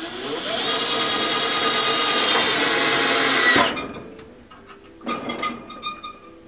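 12-volt cordless drill driving a screw up into the underside of a desk: the motor whine climbs as it spins up, runs steady for about three seconds, then stops suddenly. A few light clatters follow near the end.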